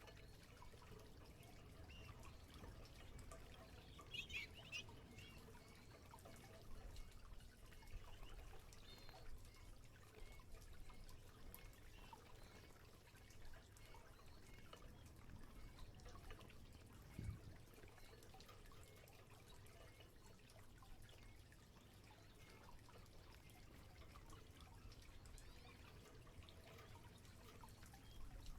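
Faint canary chirps over light trickling and dripping water, with a soft knock about 17 seconds in.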